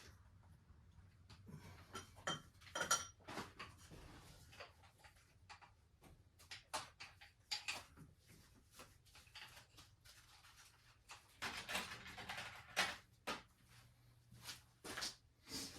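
Hand tools and metal engine parts clinking and clanking in irregular knocks while work goes on in an engine bay.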